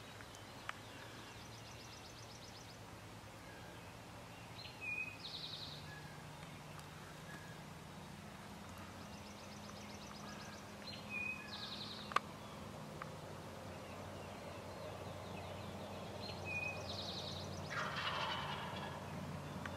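Wild turkey gobbler gobbling once near the end, a rattling call, while a songbird repeats a short, high song about every six seconds. A single sharp click sounds about halfway through.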